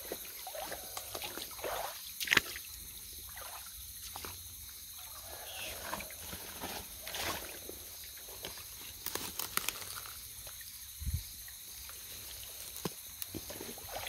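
Water sloshing and trickling, with scattered small splashes and knocks; the sharpest comes about two seconds in.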